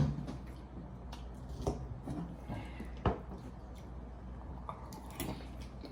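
Quiet eating sounds: a few soft, isolated clicks and taps of tableware, the clearest about three seconds in, over a low steady room hum.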